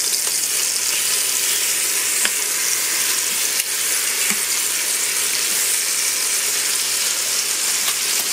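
Thick pork chops sizzling steadily in butter in an Instant Pot's stainless inner pot on the sauté setting as they are turned over, with a few faint clicks.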